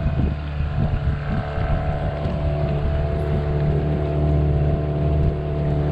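Small tiller-steered outboard motor running at a steady cruising speed on an aluminium fishing boat, with water rushing along the hull and some wind on the microphone.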